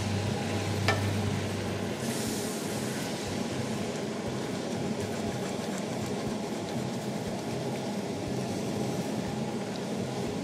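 Vegetables and red wine sizzling in a hot stainless steel pot while being stirred with a wooden spatula, as the wine deglazes the browned residue from the pot base and reduces. There is one sharp knock about a second in, and the sizzle hisses louder for a moment around two seconds in.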